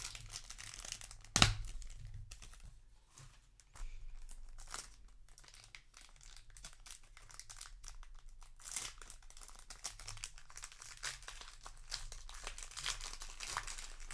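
Foil wrapper of a Magic: The Gathering box-topper booster pack being torn open and crinkled, with a sharp knock about a second and a half in.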